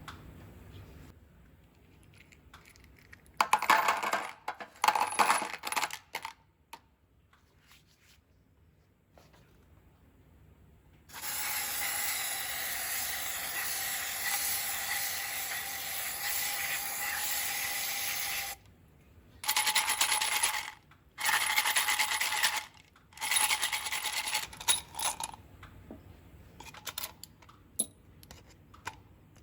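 Metallic clinks and clatter, then a small motor-driven tool running steadily for about seven seconds, followed by three shorter bursts of the same running sound.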